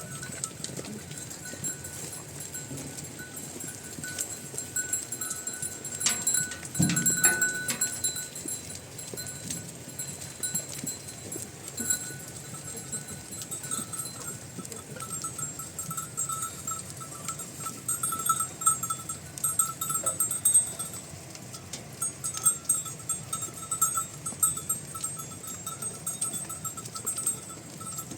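Livestock bells on a flock clinking and ringing irregularly throughout, with a few louder knocks about seven seconds in.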